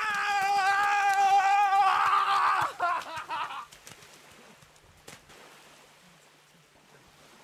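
A person's long, drawn-out yell held on one high note for about two seconds, turning rougher and breaking off raggedly about three and a half seconds in, followed by faint background.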